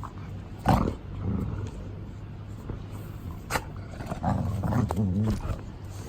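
Large dogs play-fighting and growling: a loud growl-like burst about a second in, a sharp click midway, and a stretch of wavering low growls near the end.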